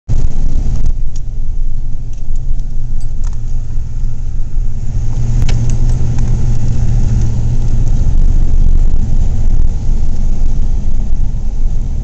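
Car driving through deep snow, heard from inside the cabin: a loud, steady low rumble of engine and tyres, with a few sharp clicks.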